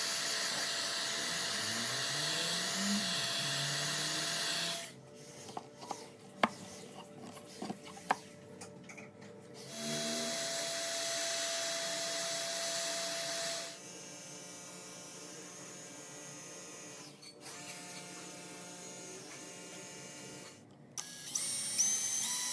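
A small electric motor, like a hand power tool, running steadily for a few seconds, stopping for a stretch of clicks and knocks, then running again for about four seconds. After that a quieter steady hum continues.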